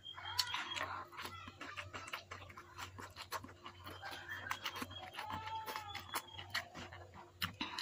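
Close-miked chewing, lip smacks and mouth clicks from eating stir-fried water spinach by hand. Chickens call in the background, with a longer drawn-out call about five seconds in.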